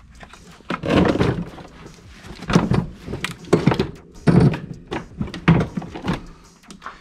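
Irregular dull thumps and knocks of snowmobile engine-bay parts being pushed and knocked by hand as a part is worked into place, about seven hits over several seconds.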